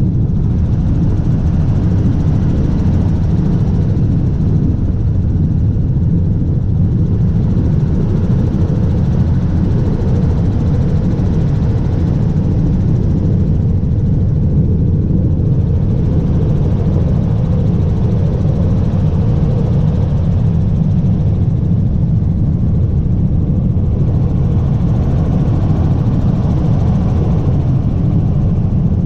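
Helicopter turbine and rotor noise during a sightseeing flight: a loud, steady, low rumble with no change in pitch.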